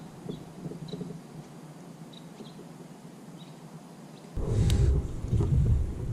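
Faint outdoor background with a few small high ticks, then about four seconds in a sudden low rumbling buffet on the microphone, with a sharp knock in it, lasting nearly two seconds.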